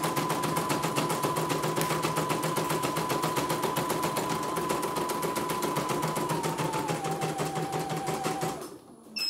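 CNY computerized embroidery machine stitching at speed: a rapid, even run of needle strokes over a steady motor whine that drops in pitch a little after six seconds in, then stops about eight and a half seconds in. A short beep follows near the end: the machine halting on a broken thread, which the repairer calls normal.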